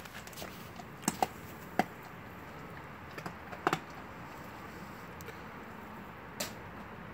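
Blue Bay Shepherd crunching on a frozen deer leg, its teeth cracking bone: a few sharp, irregular cracks and clicks, most in the first four seconds, with one softer noisy crack near the end.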